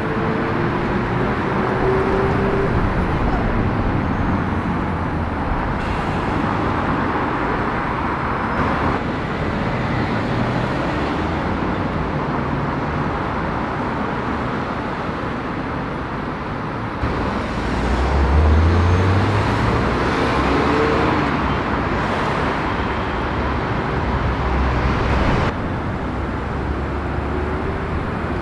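City road traffic with cars driving past: engines running and tyre noise, the sound shifting abruptly a few times. About eighteen seconds in, one engine's note rises as a car accelerates.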